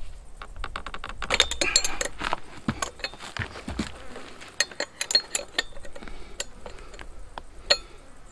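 A rapid, even run of metallic clicks as a wrench turns the flywheel nut loose on a STIHL 028 chainsaw, followed by scattered metal clinks of the tool and nut being handled.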